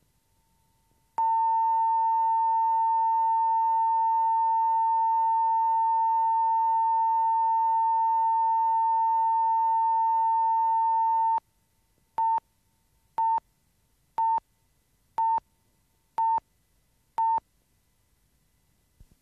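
A single steady test tone, held for about ten seconds, then six short beeps of the same pitch, one a second: a line-up tone and countdown pips at the head of a recording.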